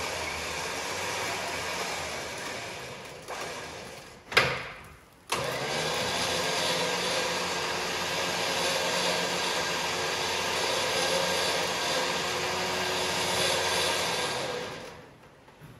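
Electric winch motor running under its wired remote, with a steady whine. It winds down about four seconds in, there is one loud clunk, and about a second later it starts again abruptly and runs until it fades near the end.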